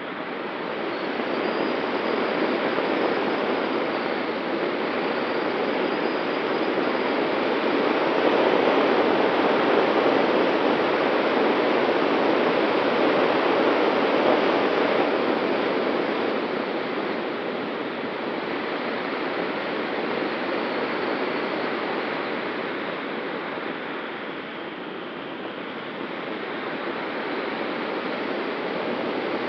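Rushing airflow over a wing-mounted camera on an ASW 19 glider in flight, a steady roar of wind noise that swells louder through the middle and eases off later, with a faint steady whistle underneath.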